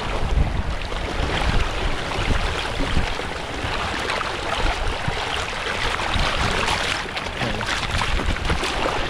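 Sailboat under way: a steady rush of water along the hull and waves, with wind rumbling on the microphone.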